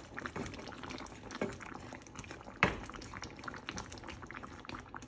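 Thick stew of pork, chicken, potatoes and carrots bubbling in a pan as a wooden spatula stirs it, with many small pops. One sharp knock about two and a half seconds in, the wooden spatula striking the pan.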